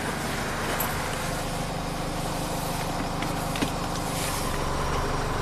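Jeep Liberty CRD's 2.8-litre four-cylinder turbodiesel running, heard from inside the cab, its note filling out and growing a little louder from about a second and a half in as the turbo spools up and builds boost, a sign that the boost system is now working.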